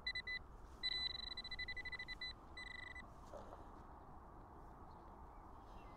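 Metal-detecting pinpointer (Nokta AccuPoint) beeping: a few short high beeps, then a rapid pulsing tone for about a second and a half and one more short beep, stopping about three seconds in. It sounds as the probe homes in on a metal target in the soil, here a button.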